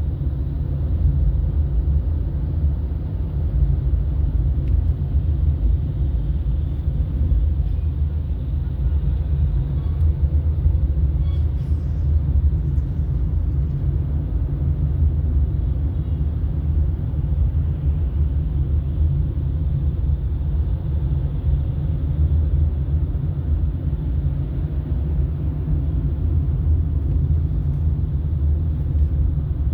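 Steady low rumble of a car driving along a road: tyre and engine noise without pauses or changes.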